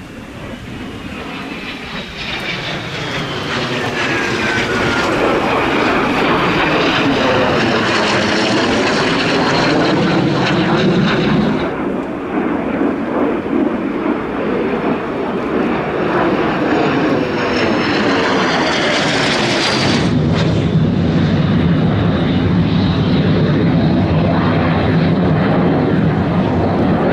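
Jet noise from Aero L-39 Albatros jet trainers flying past, building over the first few seconds into a loud rush with a sweeping, phasing shift in pitch as the aircraft passes. About twenty seconds in it changes abruptly to a duller, steady jet rumble.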